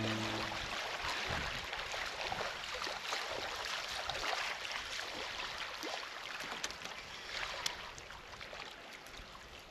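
Small waves lapping against a rocky shoreline, with many light, irregular ticks and splashes; the sound slowly fades.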